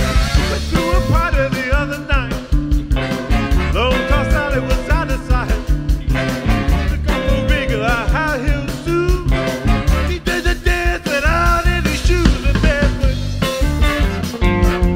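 Live soul band playing an upbeat number: electric guitar, bass guitar and drum kit with a steady beat, and a male singer on a handheld microphone.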